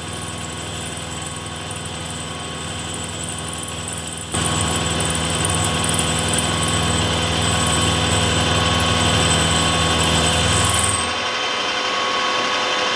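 Milling machine spindle running a 1/4-inch end mill that is cutting a slot in a metal sleeve, a steady whine with a hum under it. The sound gets louder about four seconds in, and the lower hum drops away about eleven seconds in.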